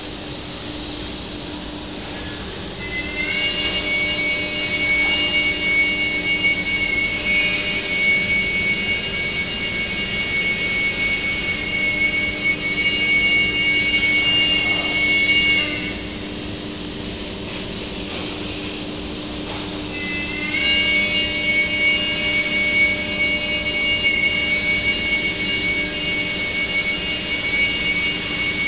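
CNC router running, its high-speed spindle giving a steady high whine over a constant machine noise. The whine comes up about three seconds in, drops away for about five seconds past the middle, then returns.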